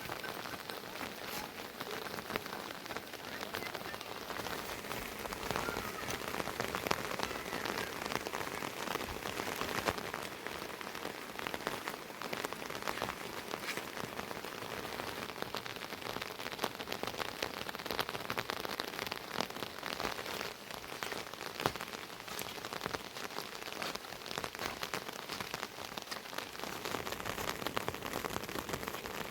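Steady rain falling on a surface, a continuous hiss thick with small drop hits.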